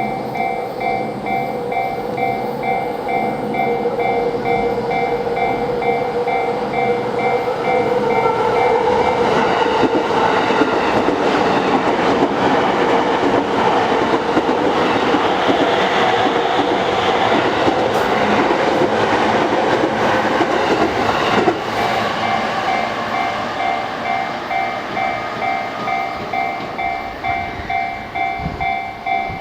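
Japanese level-crossing warning bell ringing in a steady pulse, joined about nine seconds in by a Yamanote Line electric train passing over the crossing. The train's rumble and wheel clatter swell and cover the bell, then cut off about 21 seconds in, leaving the bell ringing on its own again.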